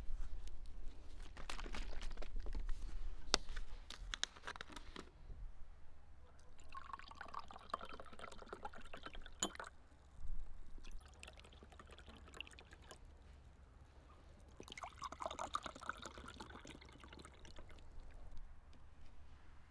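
Apple juice poured from a carton into glass tumblers, in two pours of about three seconds each, one early in the second half and one near the end. Before the pours, the carton is handled with a run of clicks and rustles, and a single knock falls between the pours.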